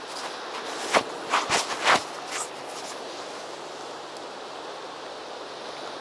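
Steady sea surf and wind noise on the shore, with a quick cluster of four or five sharp knocks between about one and two and a half seconds in.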